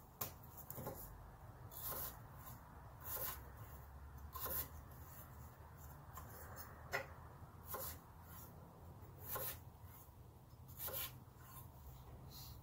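Chef's knife cutting through red potatoes and knocking on a wooden cutting board, one cut about every second or so.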